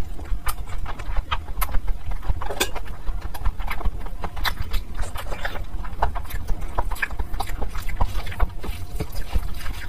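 Close-miked eating sounds of curry and fried rice eaten by hand: wet chewing and lip smacks, with squelches as fingers mix the rice into the curry. They come as a run of irregular quick clicks and smacks over a steady low rumble.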